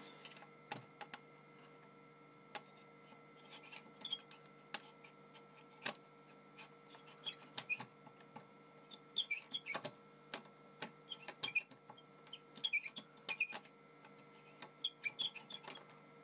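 A printed circuit card being pushed into and pulled out of its edge connector again and again, giving faint clicks and short scrapes of the card edge sliding over the contact fingers. It is working the oxidised connector contacts clean. The clicks come in clusters, busiest in the second half.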